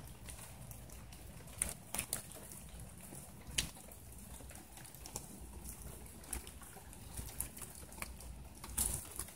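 Nine-banded armadillo rooting through dry dead leaves and twigs: scattered, irregular crisp rustles and clicks, the loudest about two seconds in, at three and a half seconds and near the end.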